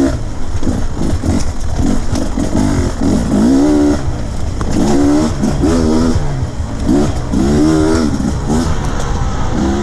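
2020 Beta 250RR counterbalanced two-stroke dirt bike engine under riding load, revving up and dropping back over and over as the throttle is worked, the pitch climbing and falling about once a second.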